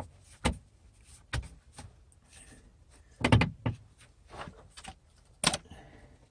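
Irregular knocks and clatters from a wooden post with a metal floor beam leveler on top being handled and set in place, with softer rustling between them. The loudest knocks come a little past three seconds in and again about five and a half seconds in.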